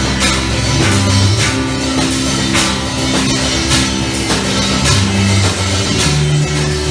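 Live rock band playing: drum kit and guitar over sustained bass notes that change every second or so, with drum and cymbal hits keeping a steady beat.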